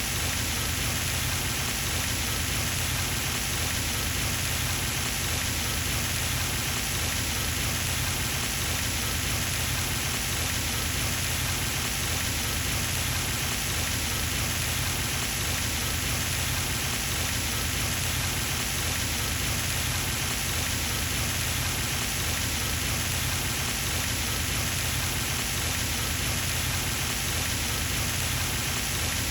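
Pond fountain running steadily, its spray splashing down onto the water surface in a continuous patter.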